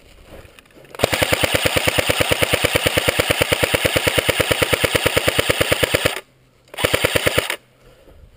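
Airsoft automatic electric gun firing on full auto: one long burst of rapid, evenly spaced shots lasting about five seconds, then a brief pause and a second short burst.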